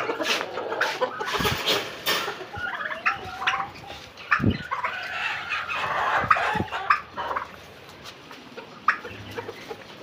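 Turkeys clucking and giving wavering calls while being chased and caught by hand, with scuffling and several sharp knocks on the hard floor. The calling dies down over the last few seconds.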